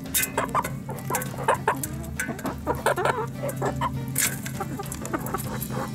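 A flock of backyard hens clucking while they peck at watermelon in a metal pan, with a scatter of quick, sharp pecking taps among the short calls.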